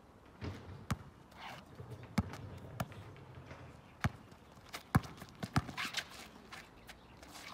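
A basketball dribbled hard on an outdoor asphalt court: sharp, irregularly spaced bounces as the ball handler works against a defender, with footsteps scuffing on the asphalt between the bounces.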